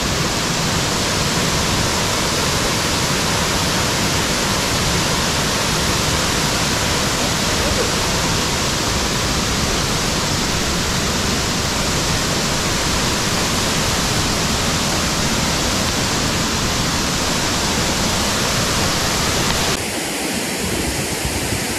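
Steady rush of a waterfall and stream. Near the end it changes abruptly to a slightly quieter flow of water over shallow rocks.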